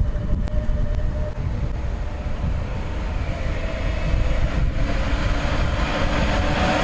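Freight train headed by two Hector Rail electric locomotives approaching and drawing alongside: a steady rumble with a faint steady tone over it, growing louder as the locomotives come near.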